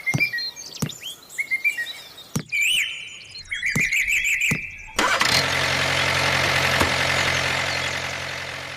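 A few sharp knocks and short warbling chirps, then about five seconds in a vehicle engine starts and runs steadily, slowly fading toward the end.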